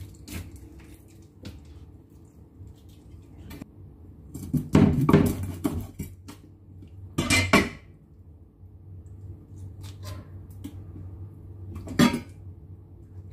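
A steel cleaver strikes a frog on a wooden chopping board, with several sharp knocks of the blade on the wood. The loudest come about five seconds in, again a couple of seconds later and once near the end, with small clicks and taps of knife handling between.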